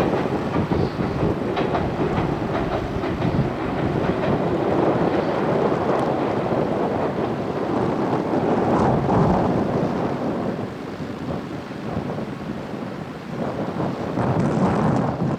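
Ueda Electric Railway Bessho Line electric train running past on the track, easing off after about ten seconds as it moves away.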